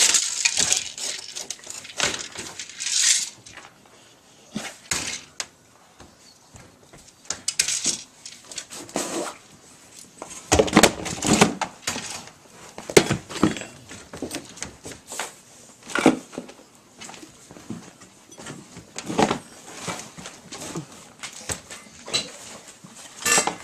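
Wire dog crates rattling and clinking as dogs shift and press against them, with scattered knocks that come thickest about halfway through.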